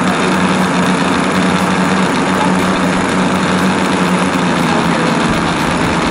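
The O.S. 25 glow engines of a large radio-controlled B-17 model idling steadily on the ground.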